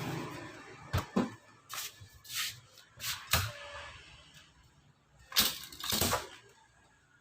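A series of irregular knocks and clatters, about eight spread over several seconds, the loudest two near the end, typical of a refrigerator and its fittings or packaging being handled.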